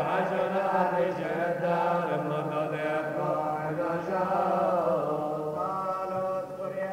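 Syriac Orthodox liturgical chant from the Epiphany service: a sung melody that bends and wavers in pitch over a steady, held low note.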